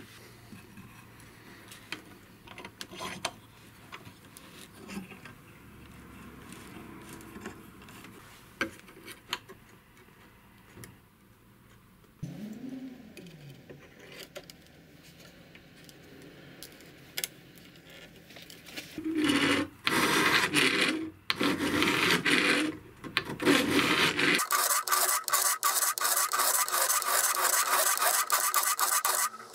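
Soft handling clicks, then a hand file rasping on the steel knife blade clamped to the bench: a few separate strokes about two-thirds of the way in, then fast, even filing near the end. A round file is working the spine of the blade.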